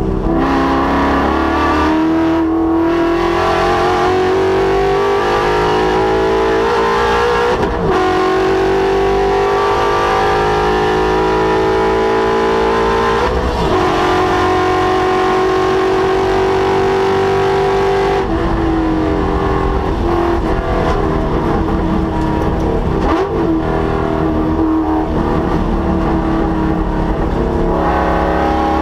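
Ford Mustang's Coyote 5.0-litre V8 running hard on track. The engine pitch climbs steadily for several seconds at a time, then drops sharply, four times in the first two-thirds of the passage.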